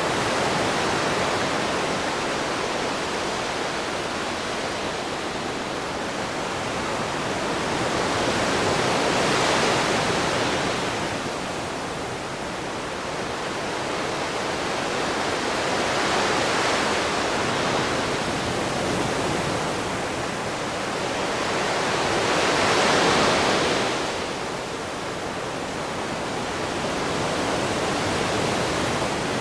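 Ocean waves breaking and washing in, a continuous rush that swells and eases about every six to seven seconds.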